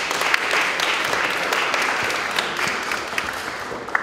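Audience applauding: many hands clapping densely, easing off toward the end.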